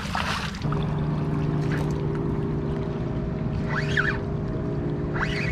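Splash of a released tautog dropping into the water, then a boat engine's steady hum that comes in abruptly under a second in and holds one pitch, with a few short high chirps over it.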